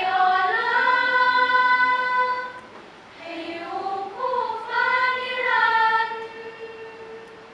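Women's choir singing a cappella in harmony: two long sustained phrases with a short break between them, the second fading away near the end.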